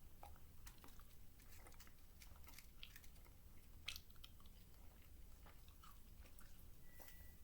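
Faint chewing of a sugar-coated gummy candy: small irregular mouth clicks.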